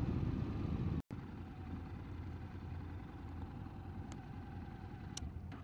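Motorcycle engine running with a steady low rumble. It breaks off sharply about a second in and comes back as a quieter steady engine hum.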